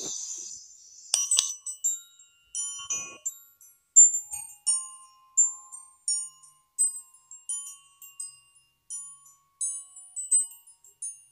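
Instrumental intro of a pop song: a high, tinkling melody of short single bell-like notes, roughly two a second, over a faint held tone. It opens with a brief high shimmer.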